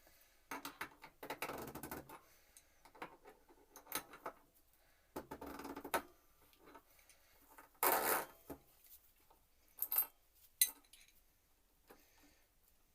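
Metal bike parts and hand tools clinking, scraping and rattling in irregular bursts as a rear hub and freehub are worked on and tightened, with the loudest clatter about eight seconds in.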